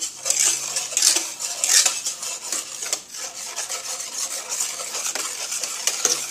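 Wire balloon whisk beating a thin mix of milk, flour, sugar and egg yolks in a metal cooking pot, the wires scraping and clattering against the pot's bottom and sides in quick, continuous strokes.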